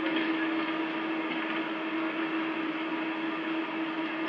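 Steady din of an arena crowd over a constant low hum, with no clear voices standing out.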